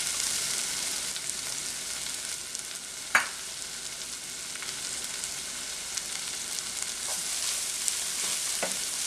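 Sliced onion-flower stalks and grated coconut sizzling steadily in a frying pan while being stirred with a wooden spatula. A sharp knock comes about three seconds in, and a lighter one near the end.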